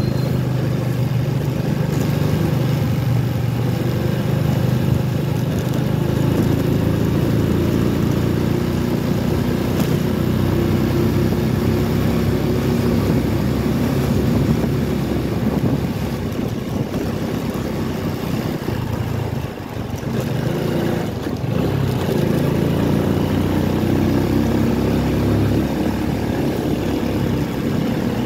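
Motorcycle engine running steadily as the bike rides along a street, with road and wind noise over it; the sound eases briefly about two-thirds of the way through, then picks up again.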